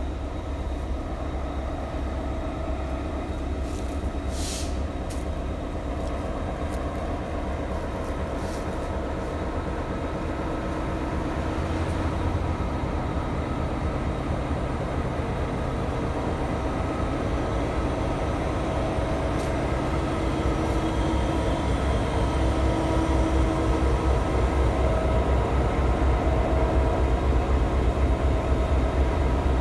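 Two ex-Conrail CSX diesel-electric locomotives idling: a steady low rumble with several steady hum tones above it, growing gradually louder.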